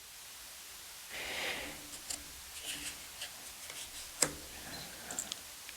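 Thick tarot cards being handled: a soft slide of card against card, then a few small clicks and one sharper tap a little past the middle as a card is set down.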